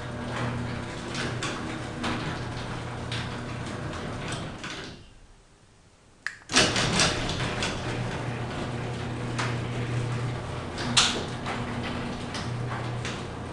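LiftMaster 3280 ½ HP belt-drive garage door opener running, its motor humming steadily under the door's rattling and clicking; its drive gear is freshly lubricated with Super Lube. About five seconds in it stops for a second and a half, then clicks and starts up again.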